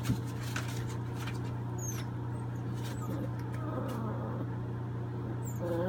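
American Staffordshire bully puppies scuffling over newspaper, with faint whimpers about halfway through and again near the end, over a steady low hum.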